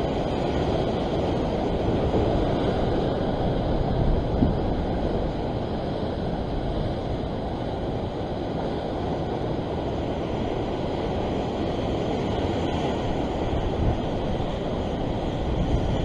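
Steady rumbling wash of ocean surf against rocks, mixed with wind on the microphone, growing stronger near the end.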